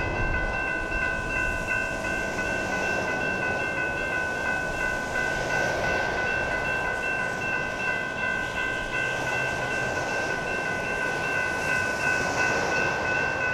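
Railroad crossing warning bells ringing without a break while the crossing is active, a steady high ringing over a low rumble.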